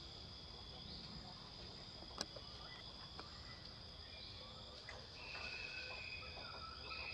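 Steady high-pitched insect chorus, a continuous shrill trill of crickets or cicadas, with a single sharp click about two seconds in and a few thin whistled notes in the second half.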